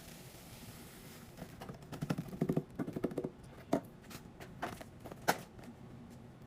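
Items being handled and set down: a stretch of rattling clatter, then three sharp knocks, the last the loudest.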